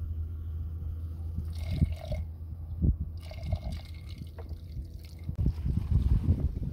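Water splashing and dripping in short bursts, over a steady low wind rumble on the microphone that grows louder near the end.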